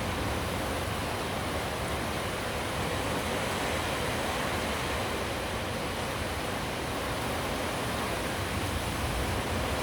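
Steady rain falling: an even hiss with no distinct thunderclap in these seconds.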